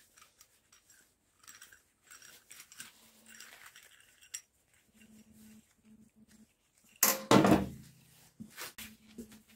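A small homemade steel clamp, made from a piece of channel, handled in gloved hands: light metallic clicks and scrapes as its screw and nail T-handle are worked. About seven seconds in comes one loud clunk as it is set down on a steel workbench, followed by a few small clicks.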